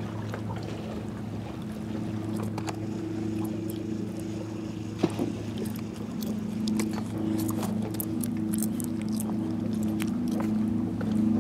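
A steady low engine drone holding one pitch, with scattered clicks and knocks, the sharpest about five seconds in.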